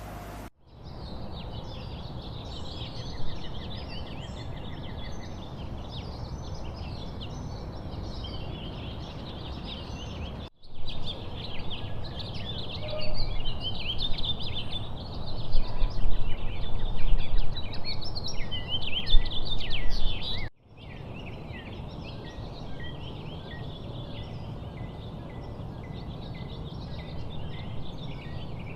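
Rainforest ambience: a dense chorus of many birds chirping and trilling over a steady low rumble. It breaks off abruptly about ten and twenty seconds in, and the middle stretch is louder, with stronger calls.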